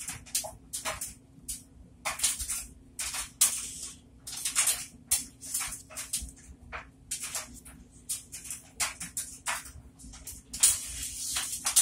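A sponge being squeezed in a bowl of thick soapy foam, giving irregular wet squelches and crackling suds, several a second, with a longer, louder squish near the end.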